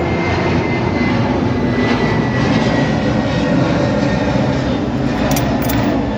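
Steady, loud drone of running machinery, with two light clicks near the end.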